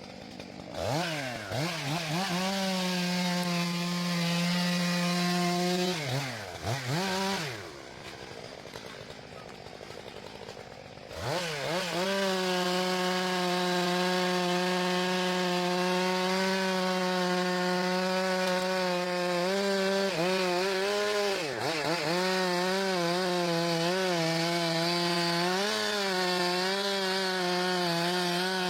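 Stihl MS 661 C chainsaw revving up to full throttle, dropping back to a lull after about six seconds, then revving up again and running at high speed in the cut, its pitch dipping briefly a few times as the chain bites into the wood.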